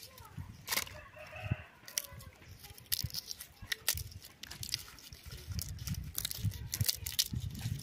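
Dry tamarind pods and dead leaves clicking and crackling as they are scooped up by hand from the ground. A chicken calls briefly about a second in.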